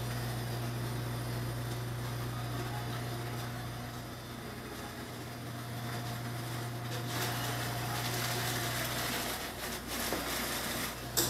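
Steady low hum of restaurant equipment, with faint room noise growing louder in the second half and one short sharp knock near the end.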